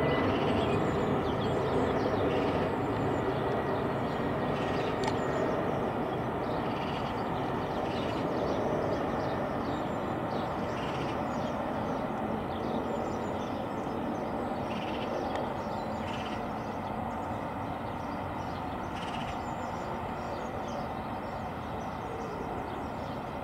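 Airbus A321neo jet airliner on approach, its CFM LEAP-1A turbofans making a steady broad rumble that slowly fades as the aircraft moves away.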